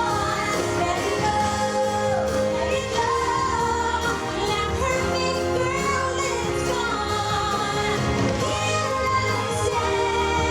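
Show soundtrack music playing loud: a melody over sustained low notes, with a voice-like line gliding in pitch at times.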